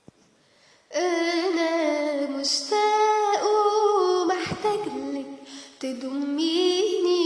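A woman singing an Arabic melody in long held notes with vibrato and ornamented turns, starting about a second in.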